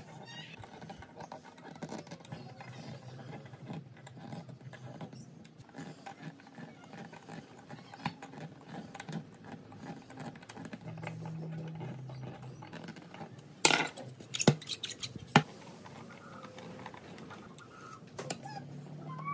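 Hand screwdriver turning small screws into a metal piano hinge on a pine board: faint scratchy ticks and rubbing of the screws biting into the wood, with a quick run of sharp metallic clicks about two-thirds of the way through.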